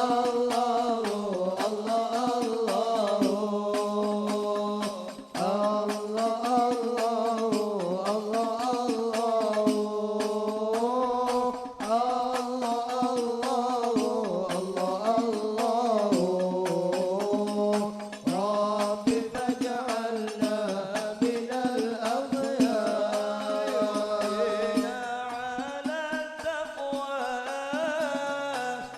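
Voices singing Islamic sholawat in long, ornamented, wavering phrases with short breaks between them, accompanied by the beats of hadrah frame drums (rebana).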